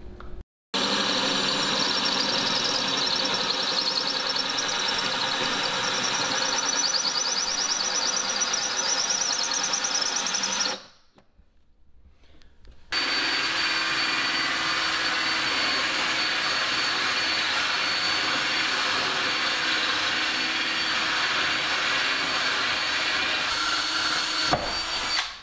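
Cordless drill spinning a diamond hole saw through wall tile, a steady grinding whine. It runs for about ten seconds, stops for a couple of seconds, then runs again for about twelve seconds.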